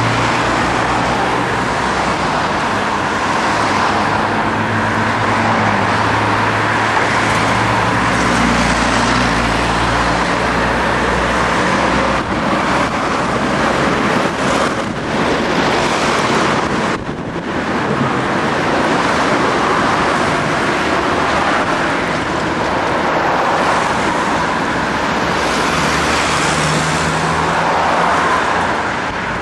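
Street traffic noise: cars and trams running past on a busy road with tram tracks, a steady loud noise with a low engine hum, dipping briefly about 17 seconds in.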